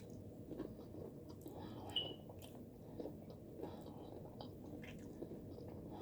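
Quiet close-up chewing, with faint scattered mouth clicks and one slightly louder smack about two seconds in.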